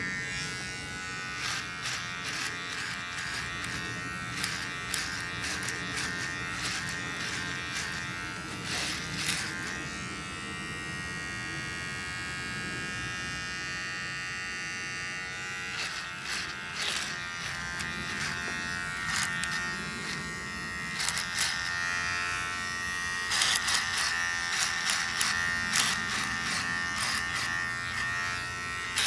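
Electric hair clipper with a comb guard running through hair, with a steady motor buzz. Scattered clicks and taps sound over it, thickest near the end.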